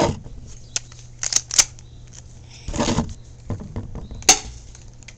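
Airsoft pistol being fired and handled: a few sharp snaps at irregular intervals, the loudest about four seconds in, with a short rustling burst near the middle.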